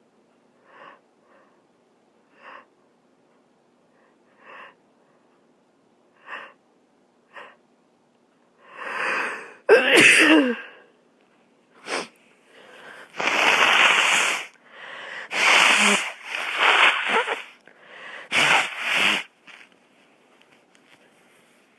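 A person sniffing in short quiet breaths, then drawing in and letting out one loud voiced sneeze about ten seconds in. Several more long, loud, noisy blasts of breath through the nose follow over the next eight seconds.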